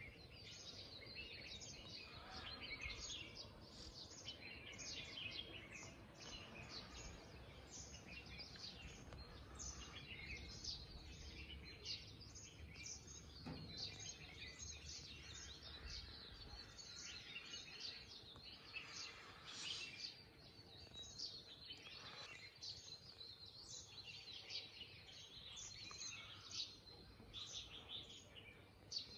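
Many birds chirping and calling at once, faint: a dense, overlapping stream of short high calls.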